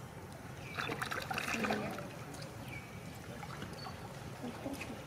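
Water splashing and trickling as macaques wade and swim in a shallow pond, with a louder stretch of splashing about a second in.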